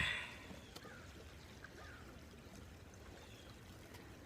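Creek water flowing faintly and steadily, with a short rustle right at the start.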